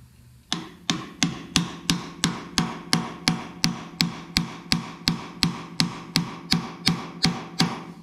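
Hammer tapping steadily on a steel bushing driver, about three blows a second, each with a short metallic ring, driving a new bushing down into the top of a tractor's cast front spindle tube. The tapping starts about half a second in and stops just before the end.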